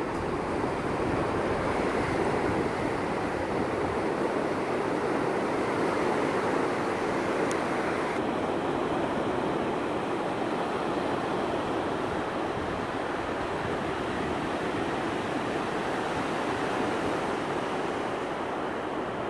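Atlantic Ocean surf breaking and washing up a sandy beach, a steady rush of waves.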